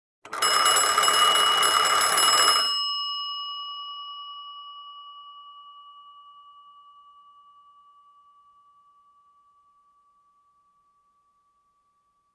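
Telephone bell rung by a rapidly striking clapper in one burst of about two and a half seconds. The bell's tone then rings on and fades out slowly over several seconds.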